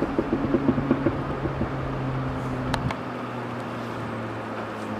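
ET22 electric locomotive at the head of a coal train, running with a steady low hum. There is a run of light clicks in the first second and a half, and a sharp click nearly three seconds in, after which the hum drops lower and quieter.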